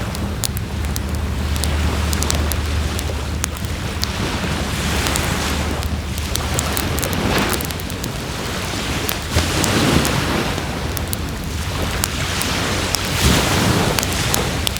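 Wood fire crackling and popping, with scattered sharp snaps. Behind it, surf washes in with a broad swell every few seconds.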